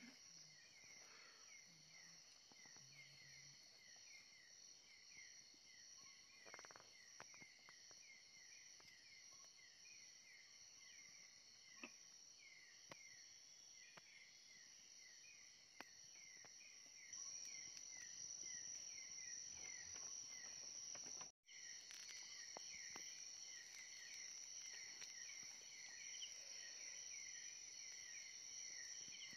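Faint chorus of night insects, crickets and similar: a steady high-pitched trill with a continuous run of short, falling chirps beneath it. It grows a little louder past the middle and cuts out for an instant about two-thirds through.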